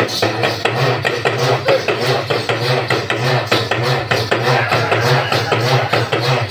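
Urumi drums playing a fast, driving beat for Devarattam folk dancing, the rubbed drums giving a repeating rising-and-falling tone over the rhythm.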